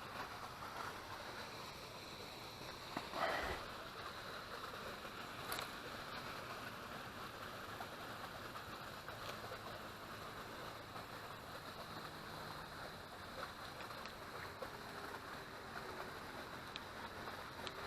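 Faint steady outdoor hiss with a short knock about three seconds in.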